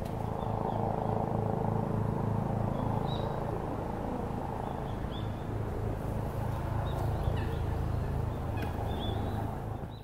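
Outdoor ambience: a steady low rumble with several short, high bird chirps scattered through it.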